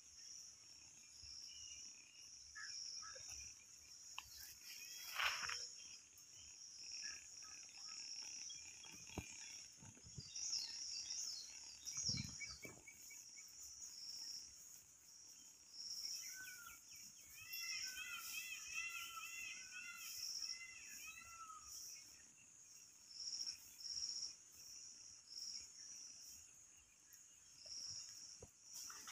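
Insects droning at a high pitch, pulsing about once a second, with bird calls: a few quick chirps about ten seconds in and a warbling bird song a little past the middle. A brief rustle about five seconds in and a low thump near the middle stand out.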